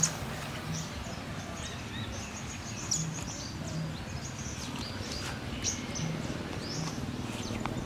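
Birds chirping in short, high calls scattered throughout, over a steady outdoor background hiss.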